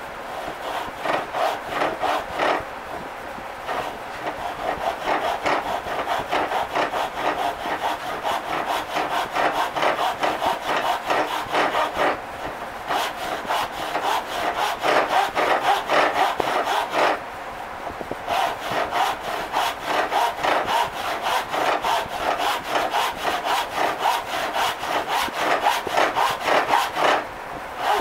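Husky hand saw cutting through a wooden board clamped in a vise, in a steady run of rapid back-and-forth strokes with a few short pauses.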